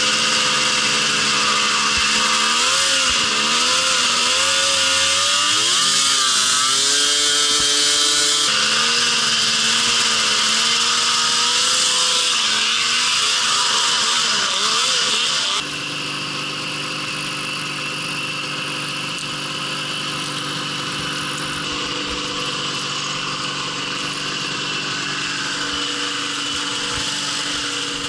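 Polaris Indy snowmobile's two-stroke engine running under way, its pitch rising and falling with the throttle. About halfway through it switches abruptly to a quieter, steadier low-speed run.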